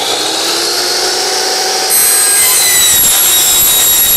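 Sliding compound miter saw with a carbide-tipped blade winding up to full speed, then, about two seconds in, the blade cutting through an aluminum side-cap piece: the motor's whine turns louder, with a high, ringing metal screech on top.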